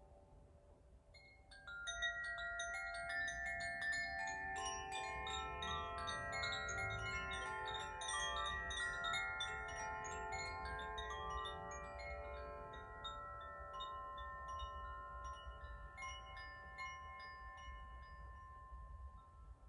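Tuned French wind chimes being rung: a quiet start, then from about two seconds in a dense run of bright struck notes ringing over one another, thinning out and fading near the end.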